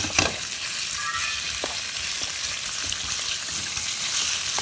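Thin slices of pork belly sizzling in hot canola oil in a wok, stirred with a wooden spatula that knocks against the pan a few times. The pork is being par-fried only briefly, just until barely cooked, before it is taken out.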